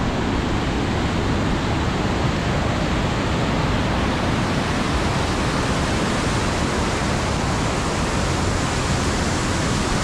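Waterfall: whitewater rushing down a steep granite rock chute in a loud, steady rush.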